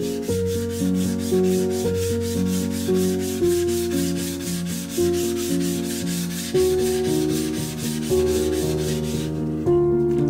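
Quick, even back-and-forth abrasive rubbing strokes, like hand sanding, about four a second, stopping near the end. Music plays underneath.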